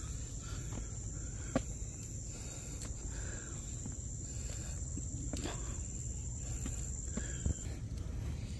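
Steady high-pitched insect drone from the forest that cuts off near the end, with a few sharp footstep clicks on a concrete path and a low rumble underneath.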